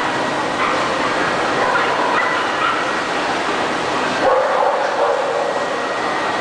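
Dogs barking and yipping in a crowded hall, over a steady hubbub of voices, with a louder patch of calls about two-thirds of the way in.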